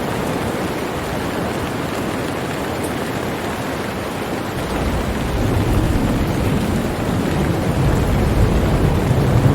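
Steady heavy rain, with a low rumble of thunder building up about halfway through.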